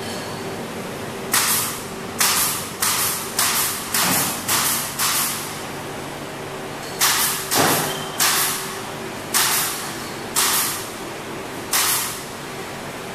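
Climate test chamber machinery humming steadily, with about a dozen short, sharp hisses at uneven intervals, each fading quickly.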